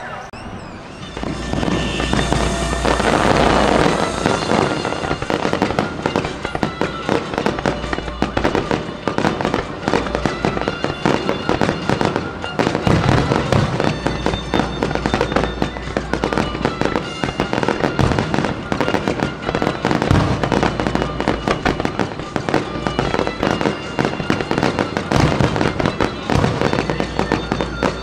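Fireworks display: aerial shells bursting with dense, continuous crackling, and deep booms every few seconds. It gets louder about a second in.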